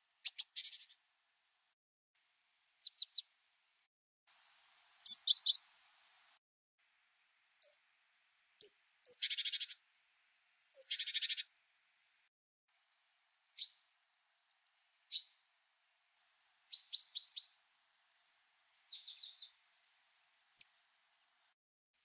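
Great tit calls: a string of short, high, separate calls with silent gaps between, including two longer harsh churring rattles near the middle.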